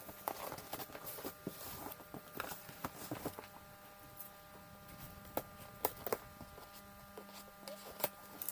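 Handling of inline skates and their packaging: scattered light clicks, taps and rustles over a steady background hum.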